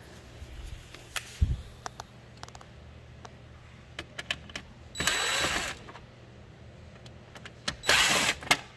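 DeWalt 20V MAX cordless drill/driver spinning screws in two short runs, about 5 s and 8 s in, the first with a steady motor whine. Scattered clicks and a dull knock about a second in come from handling the tool and the chair's metal frame.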